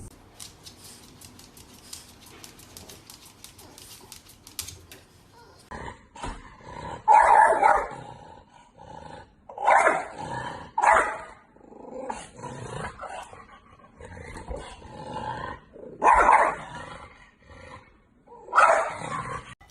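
A dog barking: a quiet stretch at first, then about eight loud barks spread over the second half, some with a growl in them.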